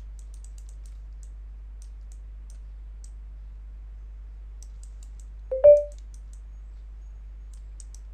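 Soft, scattered computer mouse clicks over a steady low hum. About five and a half seconds in there is one brief, much louder sound with a short tone in it, such as a knock or a short vocal noise.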